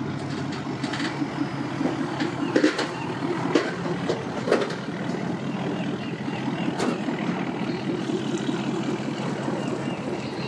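Ford pickup truck engine running at low speed while it reverses a boat trailer, a steady low hum. A few sharp knocks stand out between about two and five seconds in.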